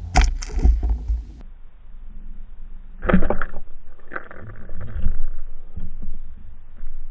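Underwater sound picked up by the submerged camera as a pike strikes at a lure: dull knocks and rushing water coming in several uneven bursts.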